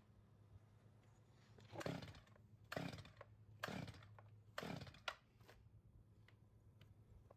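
Stihl 021 chainsaw being pull-started: four quick pulls on the recoil starter cord about a second apart, each a short whirr of the engine turning over without catching. The owner suspects it could be a little flooded.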